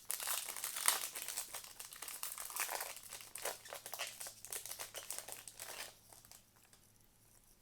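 Foil trading-card pack wrapper crinkling as it is opened and handled, a dense crackle that stops about six seconds in.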